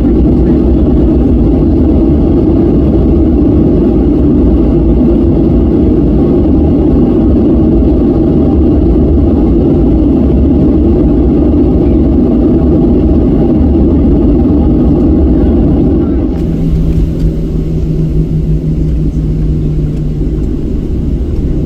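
Boeing 737-700 taxiing, heard from inside the cabin: a steady low rumble of its CFM56 jet engines at taxi power. About sixteen seconds in the sound drops abruptly to a quieter rumble with a steady low hum.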